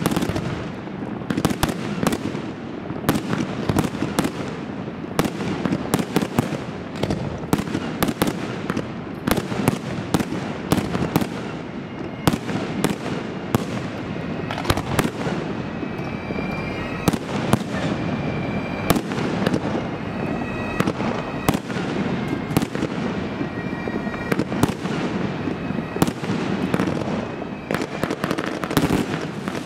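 Professional aerial firework display: rapid sharp bangs of shells bursting, often several a second, over a continuous dense crackle. Brief high whistling tones sound now and then in the second half.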